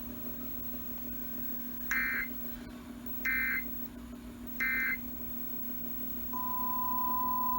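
Three short bursts of EAS/SAME digital data tones, evenly spaced about a second and a half apart: the end-of-message code closing a flash flood warning. About six seconds in, a steady single tone near 1 kHz begins, over a low steady hum.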